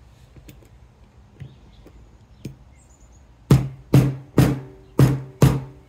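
Five hammer blows on a copper pipe piece, about half a second apart, starting about three and a half seconds in, each with a short metallic ring. They are meant to drive the pipe tight into the soldering gun's head.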